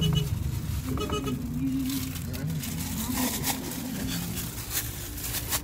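Steady low rumble of a car heard from inside the cabin, with the rubbing and knocks of a phone being handled against the microphone.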